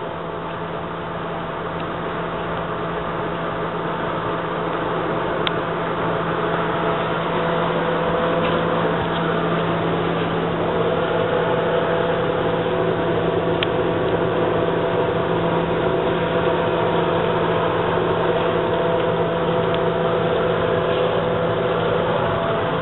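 Hunter Northshore ceiling fan running, a steady motor hum with a rush of air that grows louder over the first several seconds and then holds level, with a few faint ticks.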